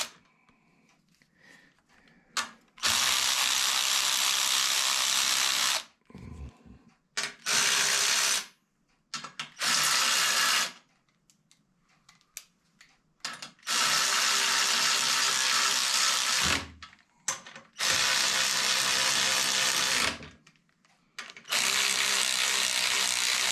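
Hyper Tough 12V cordless 3/8-inch extended-reach ratchet running under its motor in six bursts, spinning a nut on a bolt. The bursts last from about a second to about three seconds, with quiet pauses between them.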